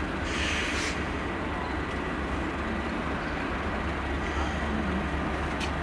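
Class 37 diesel locomotive 37418 approaching slowly, its English Electric 12CSVT V12 engine running with a steady low rumble. A brief hiss comes about half a second in.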